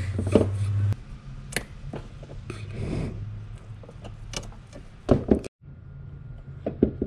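Hand tools clicking and knocking against a hose clamp, rubber transmission cooler hoses and plastic shrouding while the lines are fitted under a car. A low steady hum runs through the first second, and the loudest knocks come a little past halfway, just before the sound briefly cuts out.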